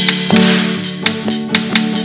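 Acoustic guitar strumming chords, with a rhythm of sharp percussive hits over it.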